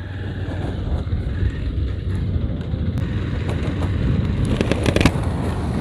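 Motorcycle riding: the engine and road rumble build up as the bike gets under way, then hold steady.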